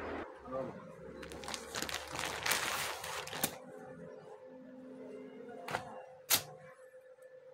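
Clear plastic packaging of a boxed-up clothing suit crinkling and rustling as it is handled and opened, with fabric being moved on a tabletop, then two sharp knocks about six seconds in. A faint steady hum runs underneath.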